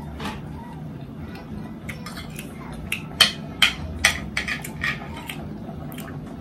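Spoon and fork clinking against a ceramic plate of steak and mashed potatoes: a quick run of sharp clicks about three seconds in, over a steady low hum.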